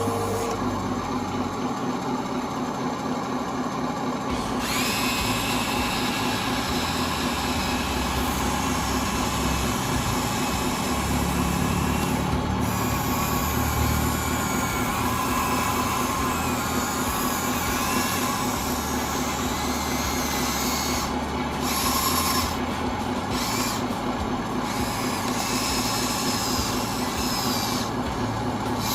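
Small electric motors and gearboxes of radio-controlled construction models whining as they work, the pitch shifting as the motors speed up and slow down. A higher whine joins about four and a half seconds in.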